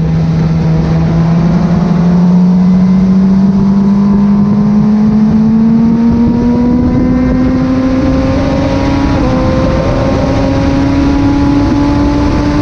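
Freshly rebuilt Kawasaki ZX-6R 636 inline-four engine running under load, cutting in abruptly. Its note rises slowly and steadily in pitch throughout.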